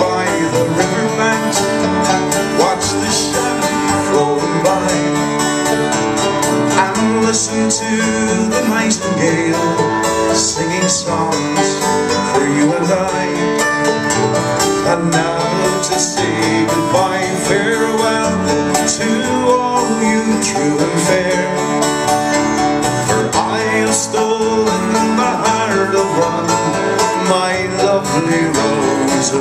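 An acoustic guitar and a banjo playing together live, the guitar strumming under the picked banjo in a steady, unbroken accompaniment to an Irish ballad.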